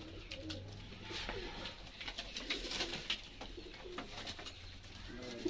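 Domestic fancy pigeons cooing softly in a loft, low repeated coos, with a few faint scattered clicks.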